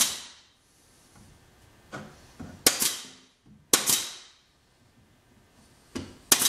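Pneumatic pin nailer firing pins into crown molding: a series of sharp snaps, one right at the start, two near the middle about a second apart, and a close pair near the end.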